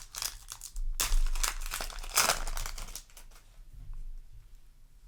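A foil Yu-Gi-Oh! booster pack wrapper crinkling and tearing open, with the loudest crackles about one and two seconds in, then quieter handling.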